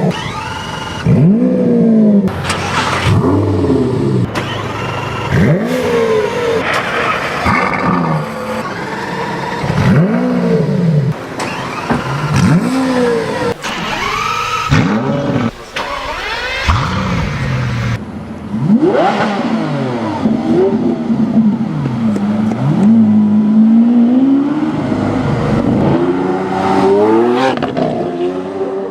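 Supercar engine revved in a series of quick blips, each rising sharply in pitch and falling away, about one every two seconds; from about two-thirds of the way in, a longer run of engine sound that rises and dips in pitch as the car accelerates.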